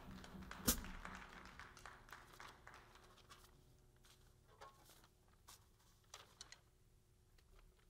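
The drum kit's last ringing dying away after a piece ends, with one sharp tap about three-quarters of a second in and a few faint clicks, fading to near silence.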